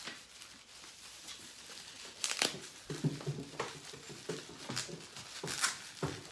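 Packing material crinkling and rustling as it is pulled open by hand, in a run of short crackles that come thicker from about two seconds in, with duller handling noise beneath.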